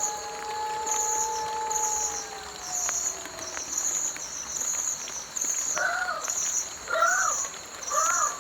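A dog's long howl slowly falling in pitch and fading out over the first few seconds, then three short rising-and-falling calls about a second apart. Crickets chirp steadily throughout.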